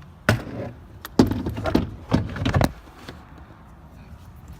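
Plastic door trim panel being handled after removal: three loud bursts of clattering and rattling, one short knock and two longer rattles.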